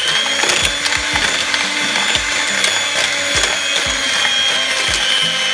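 Electric hand mixer running steadily with a high motor whine, its twin beaters whisking powdered sugar and vegetable oil in a plastic bowl.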